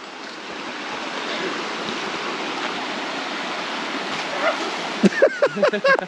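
Shallow rocky creek rushing over stones: a steady water rush that builds slightly over the first second. Brief voices cut in near the end.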